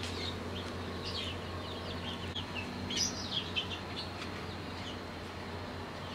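Small birds chirping: scattered short, high, falling chirps, a little louder about three seconds in, over a steady low hum.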